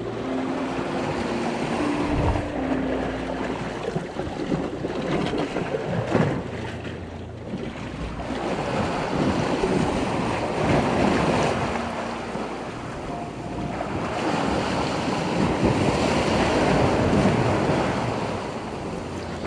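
Sea surf breaking and washing against a rocky shoreline, swelling and falling back in several surges.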